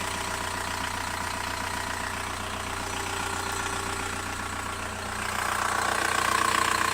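VW Bora 1.9 TDI four-cylinder turbodiesel engine idling with a fast, even ticking, the tick the owner wants identified. The sound grows louder about five seconds in.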